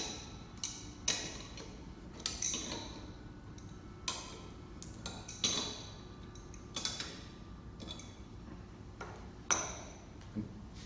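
Irregular sharp metallic clicks and clinks, about a dozen, some with a brief ringing, as a wrench tightens the clamp that holds a divert valve's body to its actuator.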